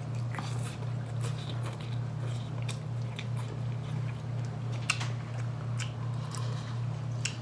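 Two people eating instant ramen noodles with forks, chewing and slurping, with a few sharp clicks from forks against plastic bowls. A steady low hum runs underneath.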